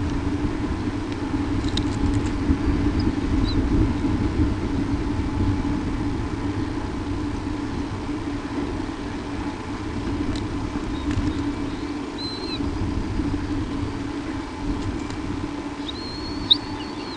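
A steady low hum and rumble, with a few faint, brief high-pitched bird chirps scattered through it and one sharp click near the end.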